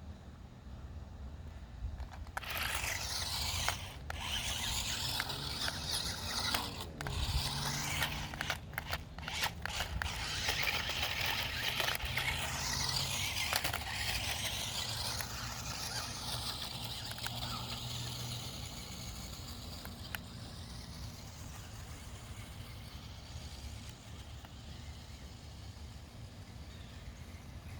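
Small electric motors of a toy RC stunt car whirring as it drives back and forth, the hiss sweeping in tone as the car moves about; louder through the first two-thirds, then fading as it gets farther away.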